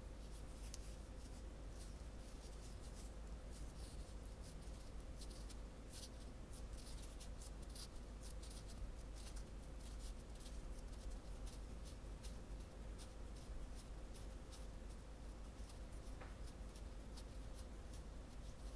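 Faint, close soft scraping and small sticky clicks as a metal spatula pushes sweet potato paste into a disc of manju dough held in the palm, then fingers press and pinch the dough up around the filling. The clicks are irregular and frequent, over a faint steady hum.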